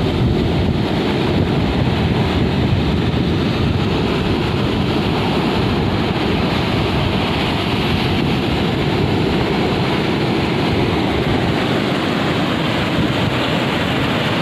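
Rough sea surf churning and breaking on the shore, with wind buffeting the microphone, a loud unbroken rush. The heavy surf is whipped up by a low-pressure system.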